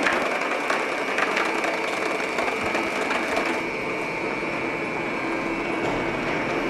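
Small bicycle with training wheels rolling along a tiled floor: a continuous rattling rumble of hard little wheels. It is harsher for the first few seconds and turns smoother about halfway through.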